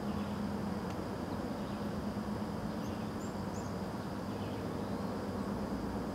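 Steady outdoor background rumble with a thin, steady high hum over it, and a few faint, short, high bird chirps about three and a half seconds in.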